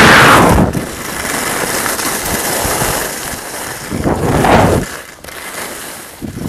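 Wind buffeting the microphone on a ski slope, a steady rush with loud gusts at the start and again about four seconds in.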